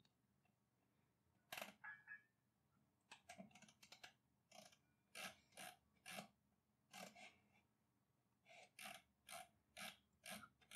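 Near silence broken by faint, single clicks of computer controls, about two to three a second with short pauses, while code is scrolled on screen.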